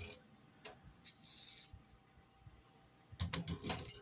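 Soldering iron tinning a stained-glass edge: a short sizzling hiss about a second in as the hot tip melts solder and flux. Near the end, a quick cluster of light clicks and knocks.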